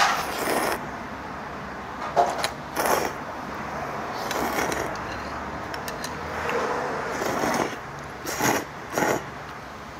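Kalguksu noodles being slurped from a small bowl, several short noisy slurps a second or two apart.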